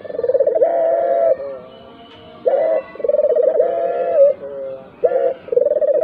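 A Barbary dove (puter) cooing, repeating its call about every two and a half seconds: a short note, a long rolling coo, then a softer falling note.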